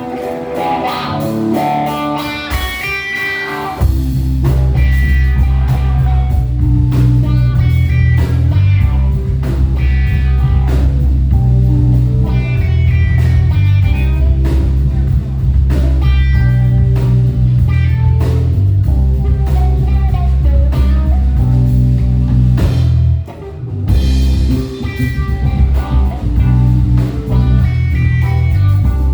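Live band playing a blues-rock instrumental: an electric guitar picks out a melody alone at first, then the bass and drums come in heavily about four seconds in. The band drops out briefly about three-quarters of the way through, then picks back up.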